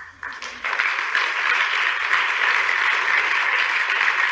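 Audience applause: a few scattered claps swell within the first second into steady, dense clapping from a large crowd.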